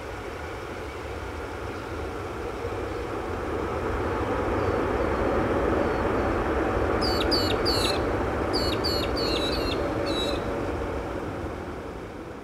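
Jet engines of a Boeing 787-8 airliner (Rolls-Royce Trent 1000s) during the landing rollout: a broad roar that swells to a peak around the middle and fades near the end as the aircraft slows down the runway. A small bird gives a quick run of short high chirps partway through.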